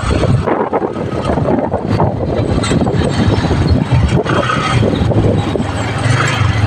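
A motorcycle riding along, its engine running with a low hum under wind and road noise buffeting the phone's microphone.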